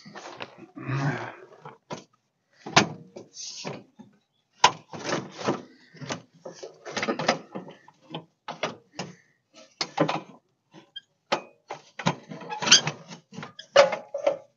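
Irregular metallic clunks, knocks and scrapes of a Mustang exhaust header being manoeuvred up into place under a 1994 Ford F150, struggling to fit.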